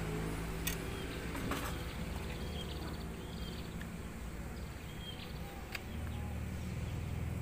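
Asian honey bee (Apis cerana) colony humming steadily from the opened hive box while comb is cut out. A few light clicks, and faint bird chirps high above.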